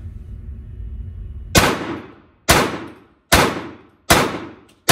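A semi-automatic pistol fired five times at a slow, even cadence, a little under a second between shots, each report ringing on in an enclosed indoor range. This is the deliberate pace the range asks for in place of rapid fire.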